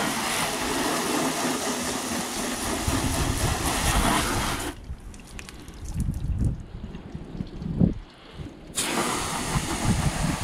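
Garden hose spray hissing as it splashes onto a car's waxed hood. It cuts off about halfway through, leaving only low wind rumbles, then starts again near the end.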